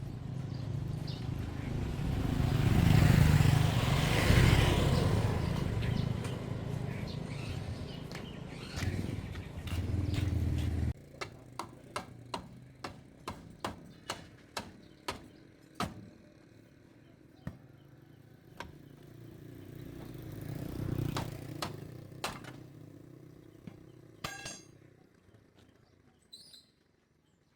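A motor vehicle engine rumbles, growing louder and then fading, and cuts off abruptly about eleven seconds in. After that come a long series of sharp knocks, roughly one or two a second, like hammering or tools striking metal.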